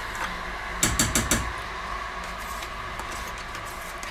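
A spoon scraping and clicking against a plastic tub as soft processed cheese is scooped out into a soup pot, with a short cluster of clicks about a second in, over a steady background hiss.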